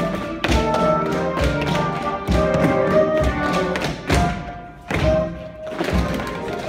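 Show-tune music playing with a group of tap dancers' shoes striking a wooden floor, many sharp taps and stamps over the music.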